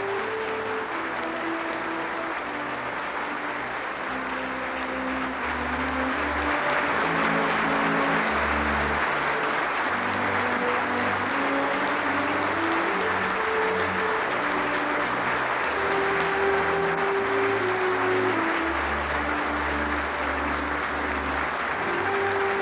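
Band music, a melody of held notes over a bass line, playing under steady audience applause that grows louder about five seconds in, welcoming the chairman's entrance.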